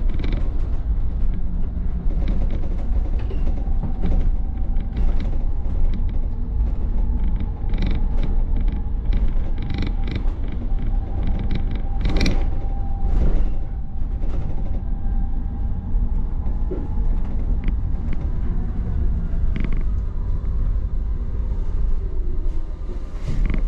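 Optare MetroDecker EV electric double-decker bus on the move, heard from the upper deck: a steady road rumble with frequent rattles and creaks from the bodywork and fittings. A faint steady whine runs under it and fades about two-thirds of the way through.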